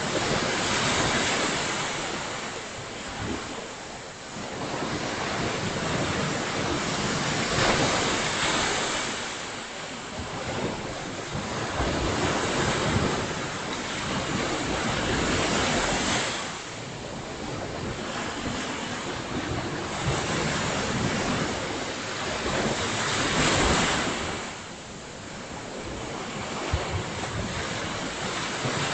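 Surf breaking on a beach, the wash swelling and falling away in slow surges every several seconds, with some wind rumbling on the microphone.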